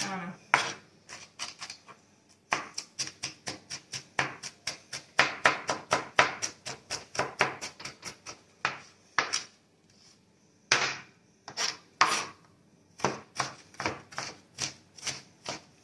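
Chef's knife chopping celery on a plastic cutting board: quick, repeated knocks of the blade, about three a second, stopping briefly twice.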